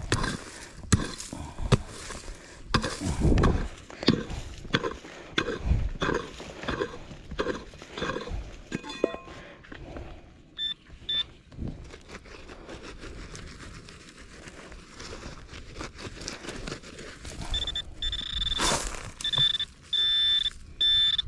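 Repeated strikes of a digging tool into soil and stones through the first half, as a buried coin is dug out. Near the end a high electronic tone from the metal-detecting gear sounds in short on-and-off beeps as it homes in on the target.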